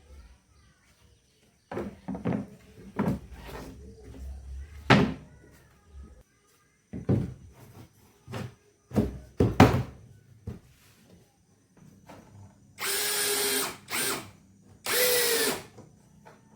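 Power drill running in two short bursts about two-thirds of the way through. Before them come a series of sharp knocks and clatter from handling wood and tools.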